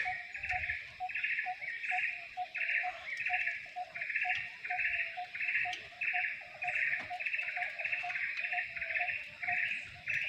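Wildlife chirping in a steady rhythm of buzzy calls, about two a second, over a fainter, quicker chirping beneath.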